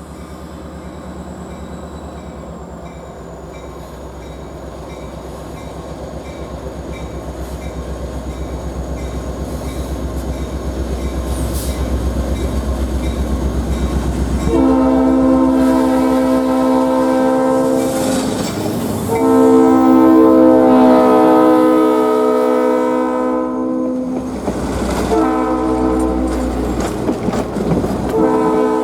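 Diesel passenger train approaching, its rumble and the clicking of wheels over rail joints growing steadily louder. About halfway through, RP39-2C 901's air horn starts blowing a multi-note chord in a series of long blasts with short breaks between them.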